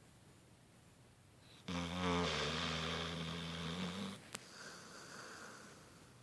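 Beagle-bloodhound mix snoring in her sleep: one loud snore about two seconds long starts nearly two seconds in. It is followed by a brief click and a softer, breathy sound.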